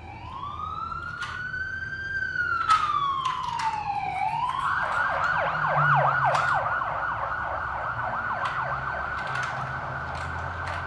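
Toy police car's electronic siren: one slow wail that rises and falls, then switches about four seconds in to a fast, repeating yelp, with a few sharp clicks from handling the plastic toy.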